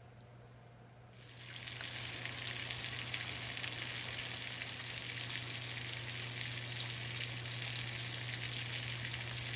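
Two steaks frying in fat in a stainless steel pan, a steady sizzle full of small crackles that starts about a second in.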